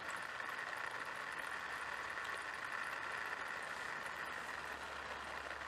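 Steady background hum and hiss, even and unchanging, with no distinct events.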